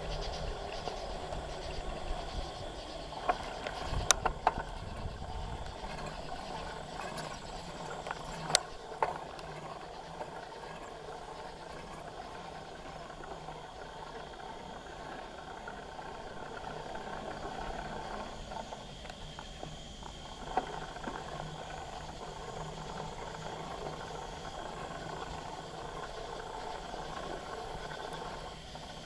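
Bicycle riding noise: tyres rolling and the bike rattling, with a few sharp knocks and clanks from bumps, the loudest about four seconds in and again near nine seconds. A thin steady insect chirping runs faintly underneath, clearer in the second half.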